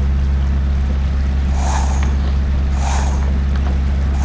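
Sailboat's inboard engine running steadily under way, a constant low hum, with three short hissing rushes about a second apart.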